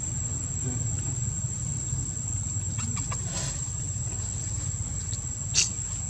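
Steady high-pitched insect drone over a low rumble, with faint brief sounds a little past halfway and one short, sharp sound about five and a half seconds in.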